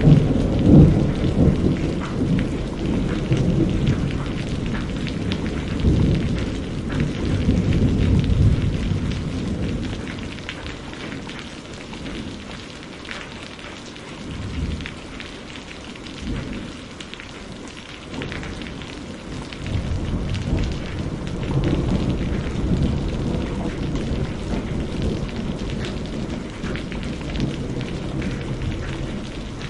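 Steady rain with rolling thunder. A long low rumble of thunder over the first several seconds dies away by the middle, and a second, softer rumble builds back about two-thirds of the way in.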